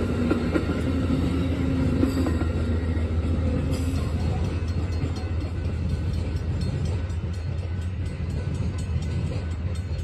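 Amtrak passenger train rolling past, the steady rumble of its wheels on the rail with a held ringing tone that fades out about four seconds in as the last cars go by. A steady low rumble carries on after, with faint light clicks.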